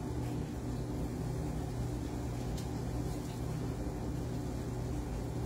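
Vibration plate exercise machine running with a steady motor hum.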